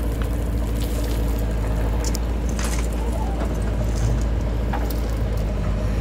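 JCB backhoe loader's diesel engine running steadily under load while the backhoe arm digs and swings, with a few short knocks.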